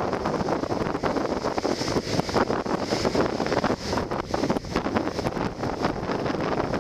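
Wind buffeting the microphone over the rumble of skateboard wheels rolling on asphalt.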